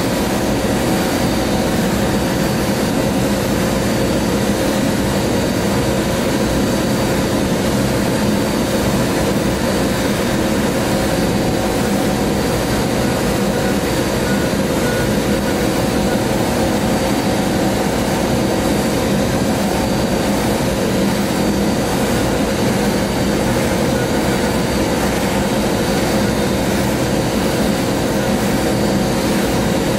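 Steady hiss of a sandblasting gun in a blast cabinet, abrasive stream etching through the stencil on a masked mug, with a steady hum underneath.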